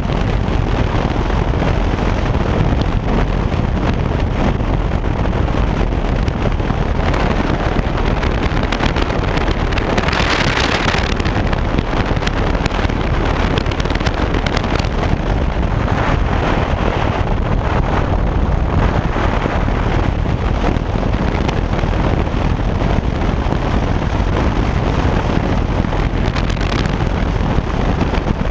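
Harley-Davidson touring motorcycle cruising at steady speed: engine and road noise mixed with wind rushing over the microphone. About ten seconds in there is a brief, louder rush of wind.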